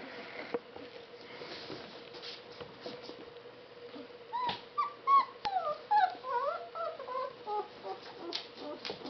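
Shiloh Shepherd puppy whimpering: a quick run of short, high, squeaky whines, some falling and some rising in pitch, from about four seconds in until about eight seconds. Scattered light clicks of paws on the wooden floor sound throughout.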